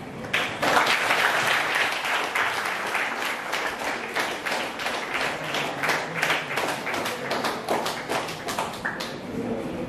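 Audience applauding with many hands clapping. It starts a moment in and dies away near the end.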